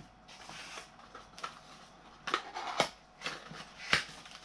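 Cardboard packaging and paper inserts being handled: a light rustle, then a few sharp taps and clicks, the loudest about four seconds in.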